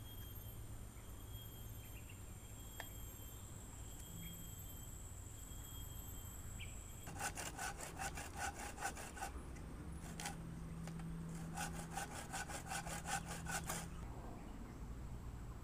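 Handmade bucksaw, a wooden frame tensioned with cord holding a steel blade, cutting through a log with quick, even back-and-forth strokes. It saws in two spells of about two seconds each, the first starting about seven seconds in and the second about twelve seconds in.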